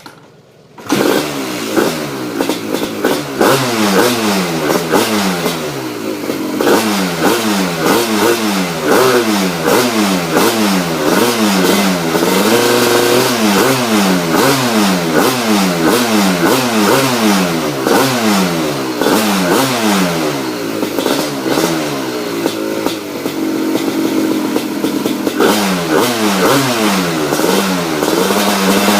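A 1993 Suzuki RM250 two-stroke single-cylinder engine with a Pro Circuit 304 exhaust. It starts about a second in and is then revved in quick repeated blips, the pitch rising and falling again and again, with a couple of brief held revs.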